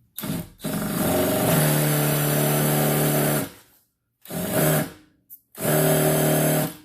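Cordless impact driver spinning a stripped-screw remover's cutting bit into a stripped screw head in bursts: a brief run, a steady run of about three seconds, then two shorter runs.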